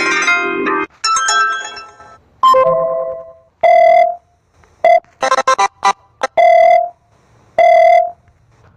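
Mobile phone ringtones playing: a short electronic melody, then a ringing pattern of held beeps at one pitch about every second and a quarter, with a quick flurry of short blips in between.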